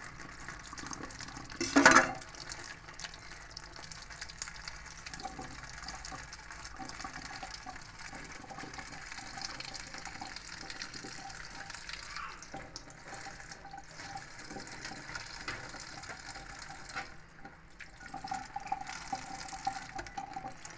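Tap water running into a stainless steel sink and over hands peeling fresh shrimp, a steady splashing hiss with a faint ringing note. About two seconds in there is a single brief loud knock.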